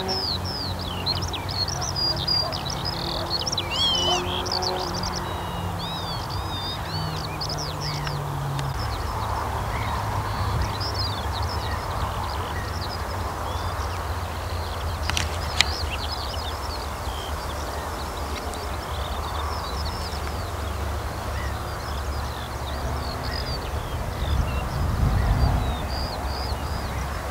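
Wild birds chirping and twittering in many quick, high, overlapping phrases, over a steady low rumble. A single sharp click about halfway through.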